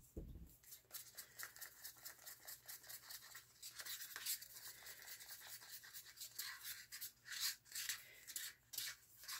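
Wooden craft stick stirring thick acrylic paint in a small cup, scraping and sloshing with quick repeated strokes, about three or four a second at first and more uneven later. The paint is being mixed after a couple of drops of water to thin it to pouring consistency.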